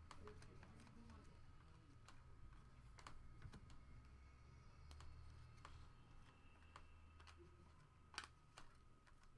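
Near silence: faint, scattered light clicks and taps over a low steady room hum.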